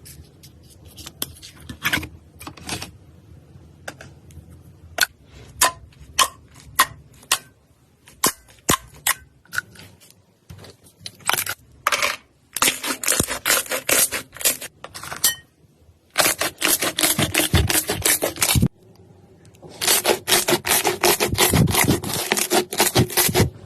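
Slime being pressed and stretched, giving sharp popping clicks: single pops at first, then dense runs of crackling pops three times in the second half.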